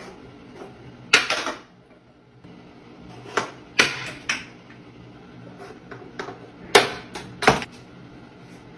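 Small potted plants knocked off a tiled bathroom ledge by a cat, several sharp knocks and clatters as the pots land.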